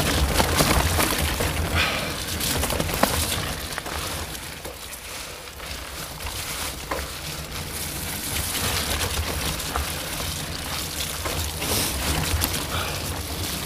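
Wind buffeting the camera microphone as a bike moves fast along a wet gravel trail, with tyres hissing over the wet surface and scattered knocks and rattles from the bumps. The rush eases a little partway through, then picks up again.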